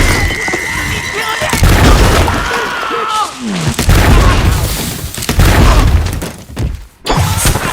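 Dubbed anime sound effects standing in for a gunfight: a string of heavy booms and shattering crashes about every second and a half. A held high tone sounds in the first second and a half, and a falling pitched whoosh comes about halfway through.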